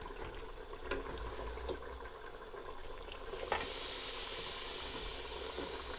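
A few light clinks of utensils on a pot, then from about three and a half seconds in, a steady sizzle as pressure-cooked mutton pieces hit the hot pot and are stirred with a slotted spatula.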